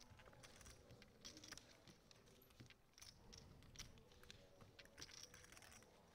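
Near silence with faint, scattered clicks of poker chips being handled at the table.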